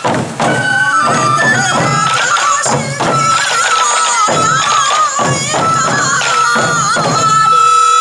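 Sansa odori festival music: many waist-slung sansa taiko drums beaten together under a wavering transverse bamboo flute melody. About seven seconds in the drumming stops and the flute holds one long high note.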